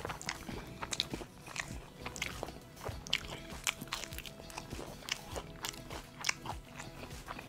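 Close-up crunching and chewing of crispy KFC fried chicken, the coating crackling in many short, sharp crunches with each bite, over background music.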